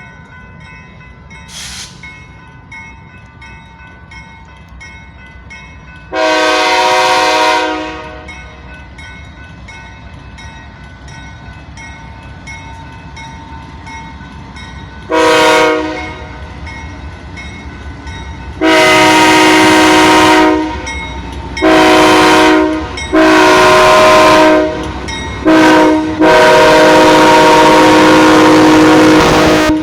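BNSF freight locomotive's multi-chime air horn sounding a series of loud blasts, long ones mixed with two short ones, the last held long, over the steady rumble of the passing train.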